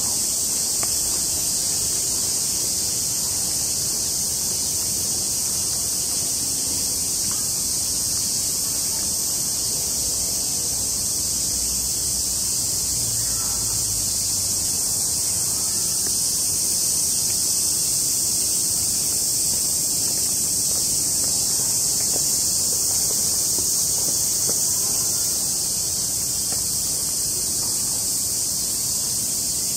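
A loud, steady, high-pitched insect chorus, one unbroken hiss that holds the same level throughout.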